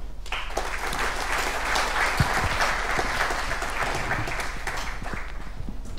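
Audience applauding, a dense, steady clatter of many hands clapping that starts just after the talk's closing thanks and thins out near the end.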